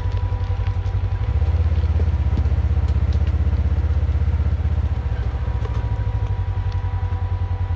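ATV engine running as the quad rides along a forest trail, with a low, pulsing note. It grows louder about a second in and eases back a few seconds later. Light clicks and clatter from the machine and trail are mixed in.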